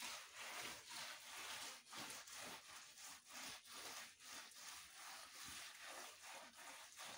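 Hand smearing wet mud and cow-dung plaster over an earthen floor, a faint rhythmic rubbing at about two strokes a second.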